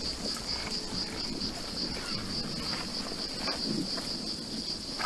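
High, steady chirring of insects in a summer field, pulsing evenly several times a second, over a low background noise.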